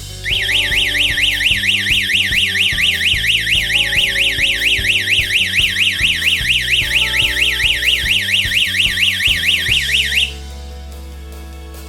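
Security alarm system's electronic siren warbling rapidly up and down, about four sweeps a second, for about ten seconds and then cutting off suddenly: the alarm's automatic shut-off after its 10-second sounding.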